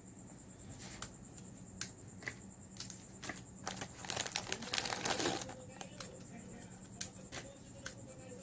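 Dry crackers being snapped by hand and a plastic cracker wrapper crinkling: scattered sharp cracks, with a denser, louder burst of crinkling and snapping about four to five seconds in.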